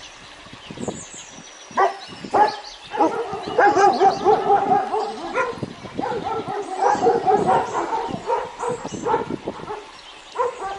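Dogs barking and yipping in a long run of short barks, busiest and loudest in the middle, with birds chirping faintly in the background.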